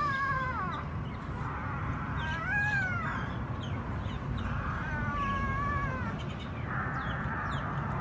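Young puppies whining: several high, wavering cries, some falling in pitch and one rising then falling, over a low steady background noise.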